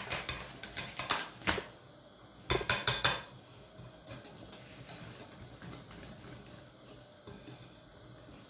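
Clinking against a glass mixing bowl in two quick clusters in the first three seconds as the measuring glass of flour is emptied. After that, a wire whisk stirs flour into egg batter by hand with a soft, steady scraping.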